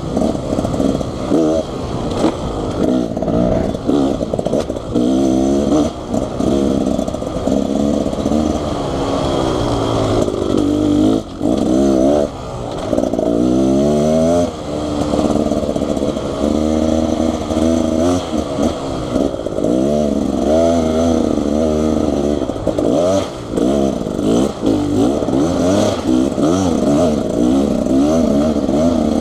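Two-stroke dirt bike engine, a Beta Xtrainer 300, ridden on a trail, revving up and down over and over as the throttle is worked, with brief drops around eleven and twelve seconds in.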